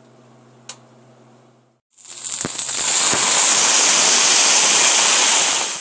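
Sliced onions going into hot oil in a frying pan and sizzling loudly, with a few knocks as the pieces land. The sizzle starts suddenly about two seconds in and holds steady.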